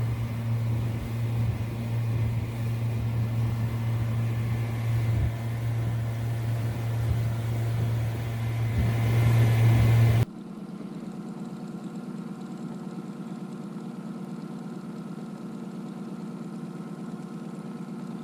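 Boat's outboard motor running steadily. About ten seconds in the sound cuts abruptly to a quieter, somewhat higher-pitched steady hum.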